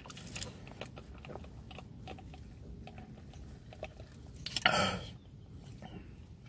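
A man sipping soda through a straw from a fast-food cup: small mouth and swallowing clicks, with one louder noisy burst about five seconds in.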